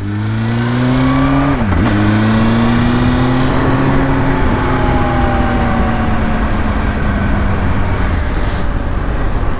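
Motorcycle engine pulling away, its revs climbing, with a gear change about a second and a half in. After that it runs on in the next gear at a slowly rising, then easing pitch, over a steady rush of wind noise.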